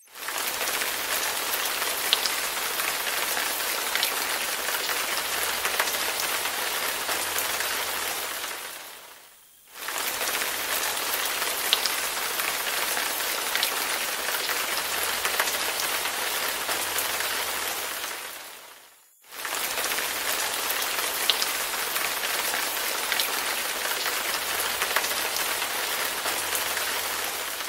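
Steady rain with scattered drop ticks. It fades out and back in twice, about every nine and a half seconds, as a short recording loops.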